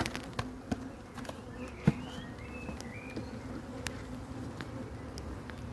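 Honeybees buzzing around an open hive: a steady, even hum, with light clicks and knocks scattered through it and one sharper knock about two seconds in.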